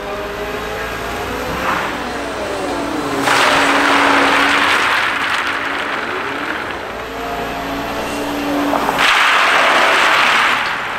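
Liebherr LH60 material handler's diesel engine and hydraulics running, with tones that rise and fall as the machine works. Two long, loud rattling rushes of crushed stone pouring from the clamshell grab onto the stockpile, about three seconds in and again about nine seconds in.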